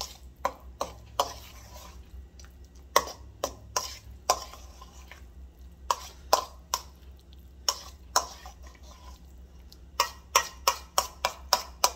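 A metal fork clinking and scraping against a stainless steel mixing bowl as thick guacamole is stirred. The clicks come irregularly, about one a second, then in a quick run near the end.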